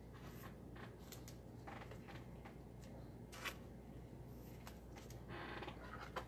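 Faint rustling and a few soft clicks of trading cards being handled, with a longer swish near the end.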